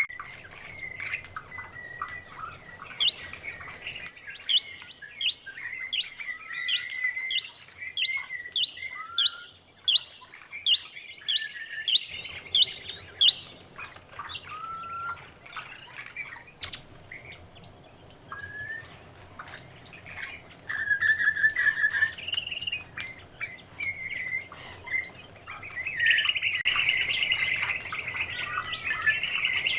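Wild birds calling: a run of quick rising notes, about two a second for some ten seconds, among scattered chirps. Near the end comes a dense twittering chorus.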